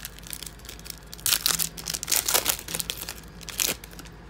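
A foil trading-card pack (2016 Donruss football) being torn open and crinkled by hand: a run of sharp crackling rips from about a second in until near the end.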